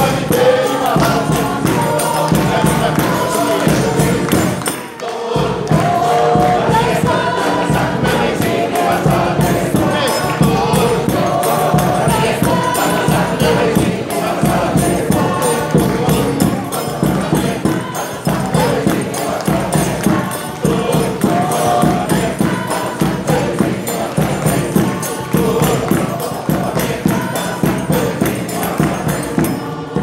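Mixed choir singing a forró song, accompanied by a zabumba bass drum, a triangle and a pandeiro keeping a steady, driving rhythm. The music breaks off briefly about five seconds in, then carries on.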